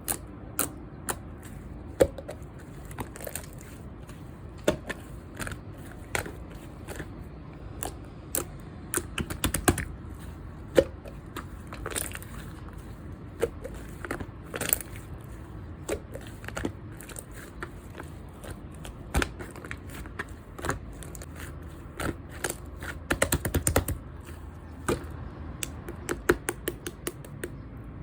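Clear slime with purple pearl shimmer being pressed and mixed by hand, giving irregular sharp clicks and pops, with quick runs of them at times.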